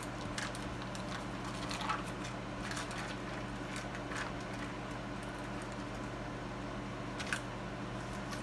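A steady electrical hum, with a few light clicks and taps of kitchen items being handled while ingredients are set out.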